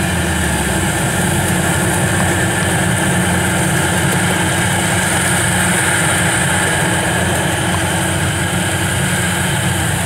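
FMWorld WD102Pro combine harvester running steadily under load while cutting and threshing standing rice: a continuous, even engine and machinery drone.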